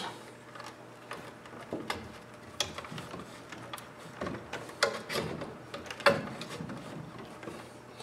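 Sheathed electrical cable being pushed into a plastic electrical box and pulled through by hand: irregular scraping and rustling with clicking knocks against the box, the loudest knocks about five and six seconds in.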